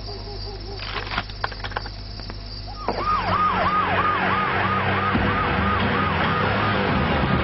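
A police siren in a fast yelp starts about three seconds in, each cycle falling in pitch, about three cycles a second, over a low steady drone. A few sharp clicks come before it.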